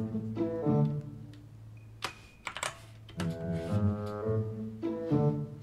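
Computer keyboard typing, a short run of keystrokes about two to three seconds in, over background music.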